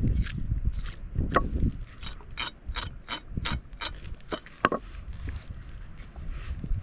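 A ratchet-like mechanism clicking rapidly, about four clicks a second for a couple of seconds, with a few single clicks before and after, over a low rumble.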